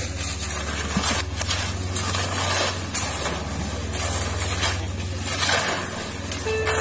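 A small engine running steadily with an even low pulse, under the rough scraping of many shovels working wet concrete mix on the ground.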